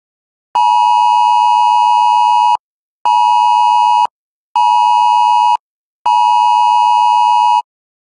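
iPhone Wireless Emergency Alert attention signal for a national test alert: a harsh two-tone beep sounding in a long-short-short pattern, then starting again. It sounds first for about two seconds, then twice for about a second each, then a fourth time for about a second and a half before it stops.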